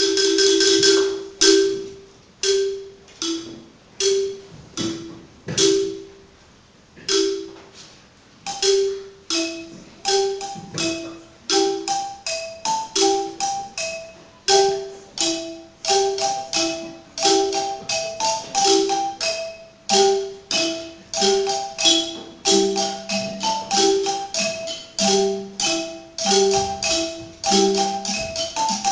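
Xylophone struck with mallets, a short repeating figure of two low notes, sparse at first and getting busier, with higher notes joining about a third of the way in and lower notes near the end.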